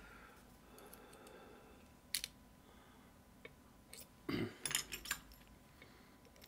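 A few small metal clicks and rattles from a picked pump lock and its picking tools being handled: one sharp click about two seconds in, then a short cluster of clicks and rattles just after the middle.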